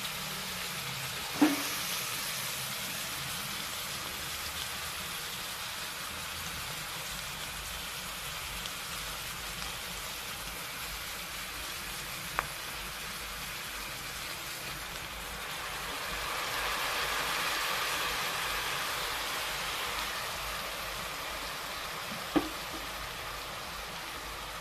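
Eggplant and vegetables sizzling steadily in a stainless steel pot, stirred with a wooden spatula. The sizzle swells louder for a few seconds after the middle. Sharp knocks of the spatula against the pot come about a second in, around halfway, and near the end.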